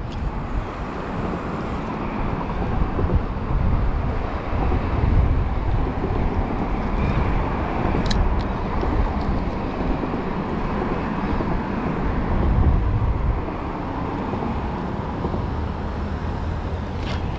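Steady rumble of road traffic that swells and fades as vehicles pass, with a few faint clicks about eight seconds in and again near the end.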